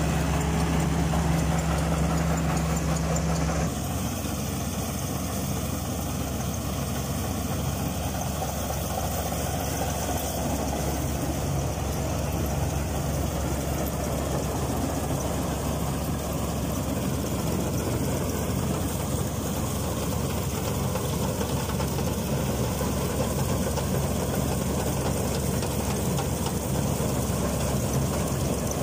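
Preet 949 crawler combine harvester working in paddy: its four-cylinder Tata diesel engine and the machinery run as a steady drone, under load while cutting. The sound shifts slightly about four seconds in.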